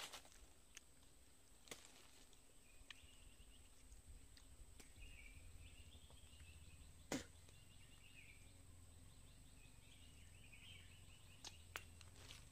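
Near silence: faint outdoor ambience with faint repeated chirping calls in the distance. A single sharp click about seven seconds in, with a few fainter ticks around it.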